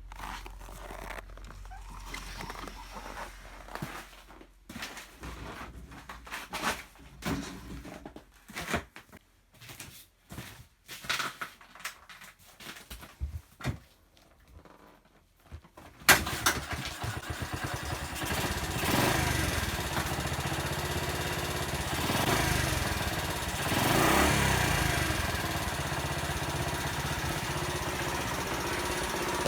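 Honda Little Cub's 50cc single-cylinder four-stroke engine cold-started in severe cold: scattered clicks and knocks for about sixteen seconds, then the engine catches suddenly and keeps running, revving up and back down a few times before holding a steady fast idle.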